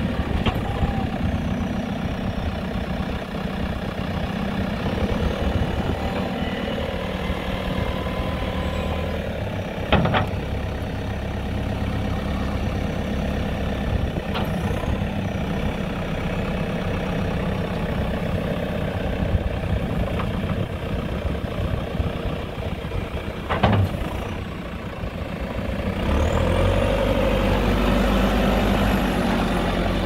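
JCB 2CX backhoe loader's diesel engine running while the loader arm is raised and the side-tipping bucket is worked hydraulically. There are two sharp knocks, about a third of the way in and again three quarters through, and the engine gets louder for the last few seconds.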